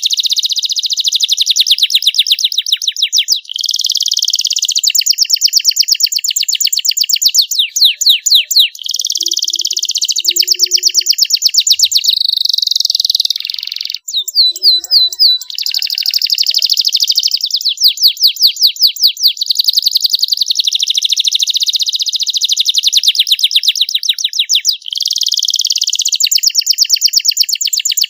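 Young domestic canary singing a long, continuous song of rapid trills and buzzing held notes, with a brief break about halfway through.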